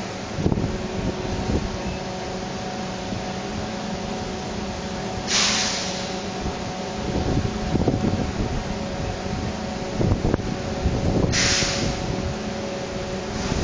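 Rotary drum vacuum filter and its drive running, a steady mechanical drone with several constant low hums. Twice, about six seconds apart, a short sharp hiss cuts in over the drone.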